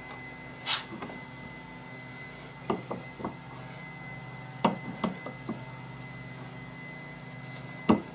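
Small clicks and taps of a metal AR-15 rear-sight aperture being set between tape-covered bench vise jaws, with a louder knock near the end as the vise handle is taken up to clamp it. A steady low hum runs underneath.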